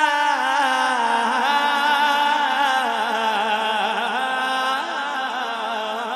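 A man's voice singing a naat without instruments: long held, ornamented notes that waver in pitch, sliding down during the first second.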